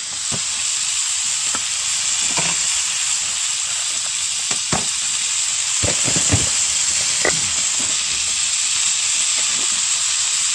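Pork duruchigi stir-frying in a hot pan, a steady sizzle, with a few short knocks scattered through it, several close together around the middle.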